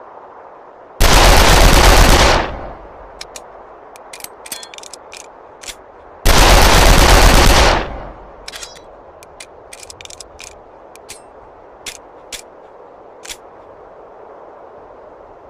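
Mauser C96 pistol firing twice, each a very loud blast of gunfire lasting about a second and a half before it dies away, about five seconds apart. Scattered short metallic clicks and clinks come between and after the two.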